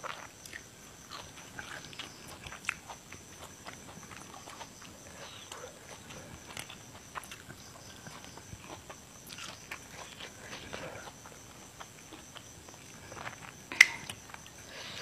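Close-up chewing of fresh and blanched leafy vegetables: wet mouth clicks and small crunches scattered throughout. A single sharp tap near the end.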